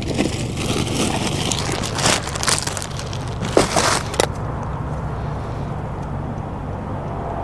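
Plastic poly mailer crinkling and rustling, with a few knocks, as a package is lifted from a car floor and carried out through the open door. Under it is a steady low hum from the parked car's idling engine.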